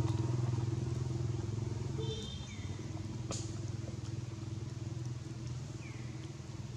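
A motor engine running steadily with a low hum that drops off somewhat about two seconds in. A faint click and two short, high falling chirps sit over it.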